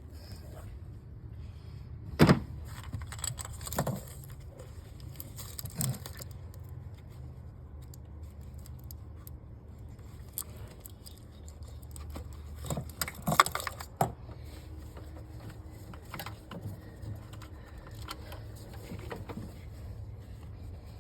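Metal clinking and jingling, like keys or small tools being handled, with a few sharp knocks, the loudest about two seconds in and another cluster around thirteen seconds, over a steady low hum.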